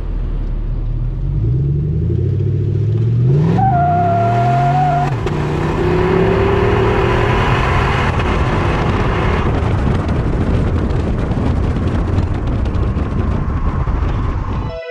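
A V8 engine through a hand-built titanium exhaust, accelerating: the engine note rises for a few seconds, then gives way to a steady rush of engine, road and wind noise at speed.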